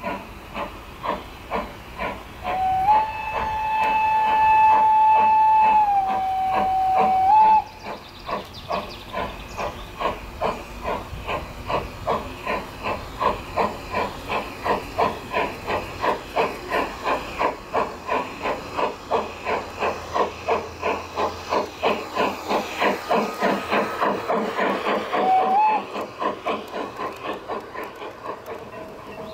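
Märklin gauge 1 model of a Prussian G8 (BR 55) steam locomotive with steam sound: a long whistle that steps up and then down in pitch, then steady chuffing that speeds up as the locomotive passes, with a short whistle toot near the end.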